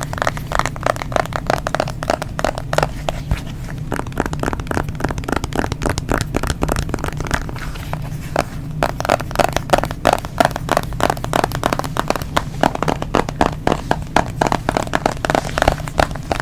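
Fingernails tapping rapidly on a smartphone, many quick clicks a second in uneven runs, over a steady low hum.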